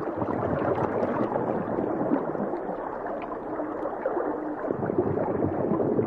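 Water gurgling and bubbling in a dense, steady wash.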